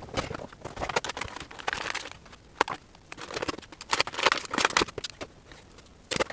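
Action figure packaging being handled and opened: irregular rustling and crinkling of cardboard and plastic, with scattered sharp clicks.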